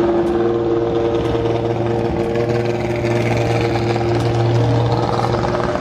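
Vehicle engine running steadily at a constant pitch.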